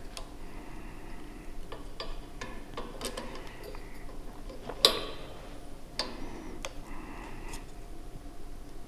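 Irregular small clicks, taps and faint scraping of a pop filter's clamp being fitted and tightened onto a microphone shock mount, with one sharper click about five seconds in.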